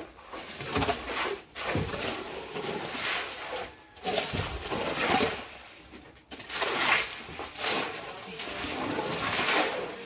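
Steel shovels scraping and crunching through wet concrete and gravel as it is mixed by hand on the ground, stroke after stroke in an uneven rhythm.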